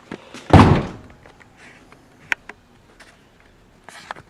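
Handling noises at a pickup truck's door: one loud, short thump about half a second in, then scattered light clicks and taps, among them one sharp click with a brief ringing tone a little after two seconds.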